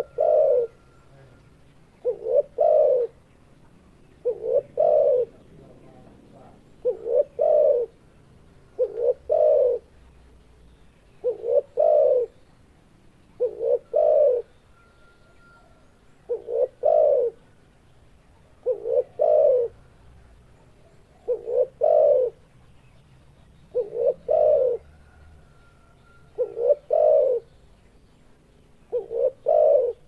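Spotted dove (tekukur) cooing: the same short phrase of two or three low coos repeated about every two and a half seconds.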